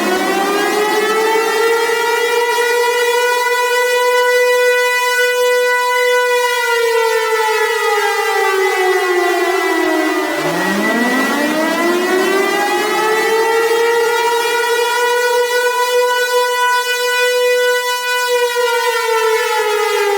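Tornado warning siren wailing: its pitch climbs and holds high for several seconds, sinks, then climbs again about halfway through and is sinking near the end. A steady high tone runs under it throughout.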